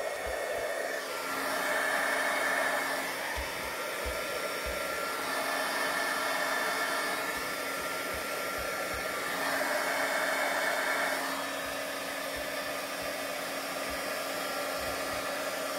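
Embossing heat gun running continuously: a steady rushing blow over a low hum, swelling louder twice. It is being used in short bursts of heat to loosen embossing powder stuck in a rubber stamp so it can be wiped off.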